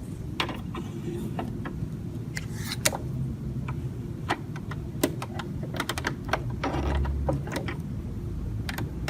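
Irregular small clicks and taps of hands threading a sewing machine, its parts knocking and snapping under the fingers.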